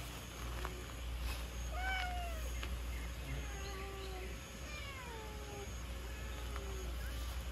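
Domestic cats meowing: a string of short, mostly falling calls at different pitches.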